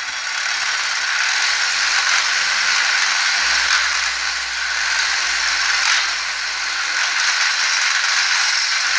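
Steady, harsh rattling hiss from tool work inside a bare cast-iron 428 Cobra Jet V8 engine block.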